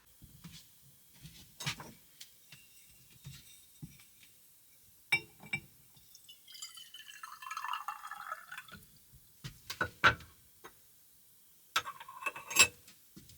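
Glassware and dishes clinking several times, with about two seconds of liquid pouring or sloshing in the middle.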